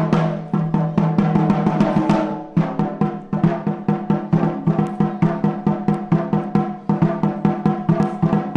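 Wadaiko (Japanese taiko drums) played in rapid, rhythmic strokes, several a second, over sustained pitched notes. There is a brief drop about two and a half seconds in.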